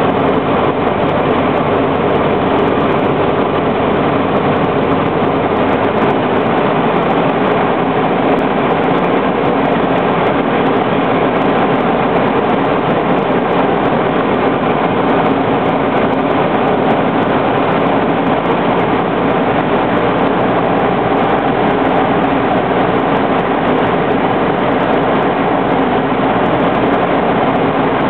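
Ercoupe 415-C light aircraft's piston engine and propeller running steadily on approach to land, with wind rush, heard from inside the cockpit.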